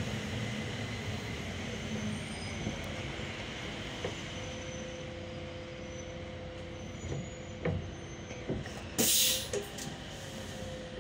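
Solaris Urbino 18 III articulated bus heard from inside the cabin, with a steady running drone and a faint whine, a few light knocks, and a short sharp hiss of released air about nine seconds in.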